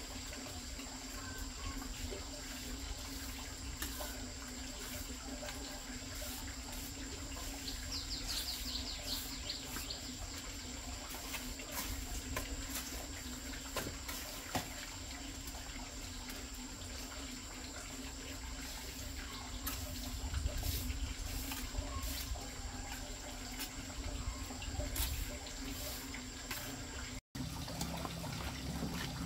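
Water running and splashing, with a few light knocks.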